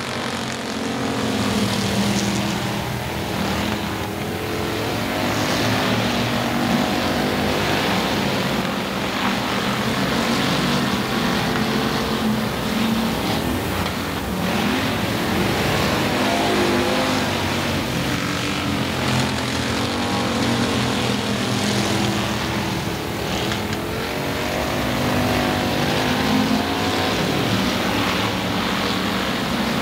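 Engines of several stock cars racing on a dirt oval track, running hard together, their pitch rising and falling as they accelerate and lift through the corners.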